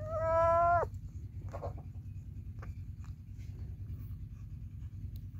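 A kitten gives a single meow, just under a second long, that drops in pitch as it ends. Then come faint clicks and rustles from the kitten feeding on its prey, over a low steady hum.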